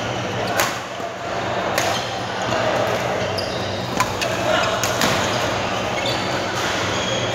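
Badminton rackets striking the shuttlecock during a doubles rally: four sharp hits, roughly one to two seconds apart, with shoe squeaks on the court floor and voices in the hall behind.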